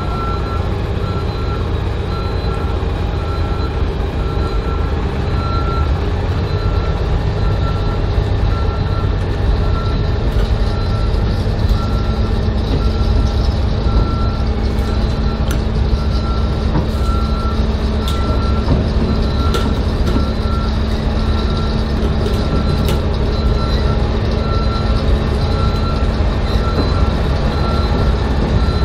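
A warning beeper sounds a short high beep about once a second over a steady low engine rumble as the new Bombardier Flexity E2 tram is moved slowly along the track. A steady low hum joins about eleven seconds in.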